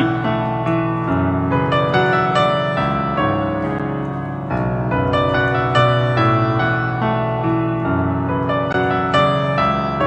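Piano playing an instrumental passage: a melody over chords and held bass notes, each note struck and left to ring.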